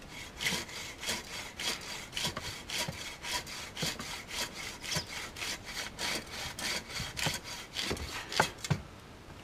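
Hand saw cutting through a birch log on a wooden sawhorse, in steady back-and-forth strokes about three a second. Two sharp knocks come near the end, and then the sawing stops.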